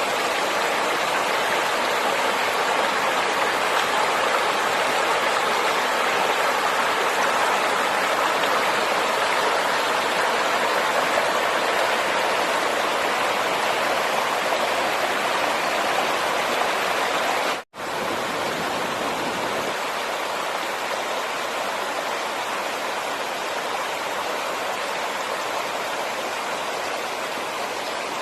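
Steady rush of flowing water. It cuts out for an instant about two-thirds of the way through, then carries on slightly quieter.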